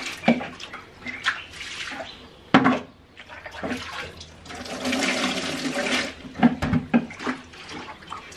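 Water running from a tap in short spells, the longest lasting about two seconds midway, with a few sharp knocks in between.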